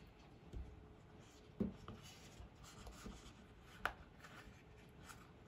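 Faint rubbing and a few light clicks and taps from hands handling a python hatchling and its leathery eggshell, with two sharper taps about one and a half and four seconds in.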